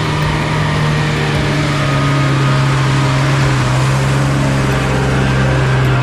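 Vehicle engine running steadily, with a bus driving up and passing close near the end.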